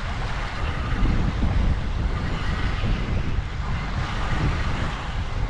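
Wind rumbling on the microphone over water slopping around a small open boat, with the boat's automatic bilge pump running, having switched itself on.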